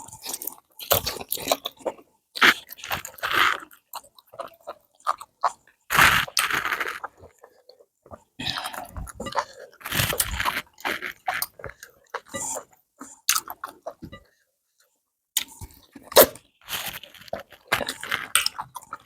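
Close-up eating sounds: wet chewing, biting and lip-smacking of rice fufu and okra soup with meat, in irregular bursts with a short pause about two thirds of the way through.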